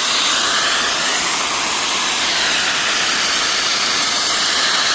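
Water rushing out of a leaking 3-inch PVC water main under pressure: a loud, steady hiss that starts and stops abruptly.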